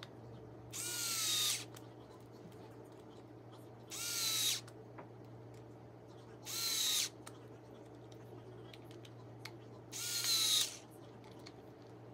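Makita TD171D 18V cordless impact driver run with no load in four short trigger pulls, each under a second: the motor spins up with a rising whine and cuts off.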